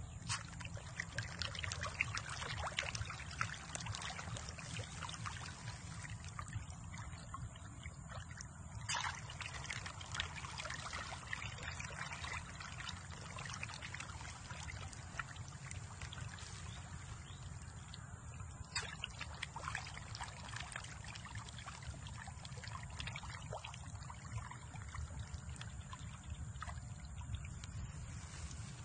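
Water splashing and trickling at the surface of a tilapia pond, with many small pops and a few louder splashes, over a steady low hum.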